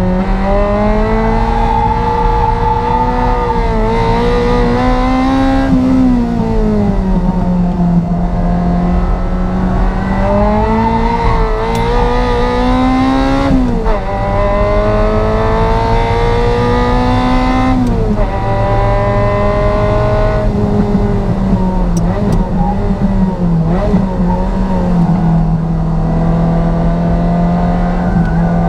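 Ferrari 348 Challenge's flat-plane V8 pulling under load on track, its pitch climbing steadily then dropping sharply three times as the driver shifts or lifts, with a lower, more even stretch near the end.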